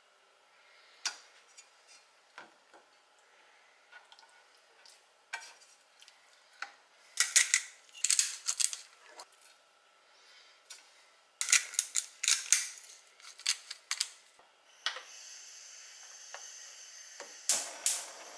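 Scattered clicks and clatter of cooking utensils and a frying pan on a gas hob, then, about fifteen seconds in, a steady sizzle starts as a raw steak goes into the hot oiled pan.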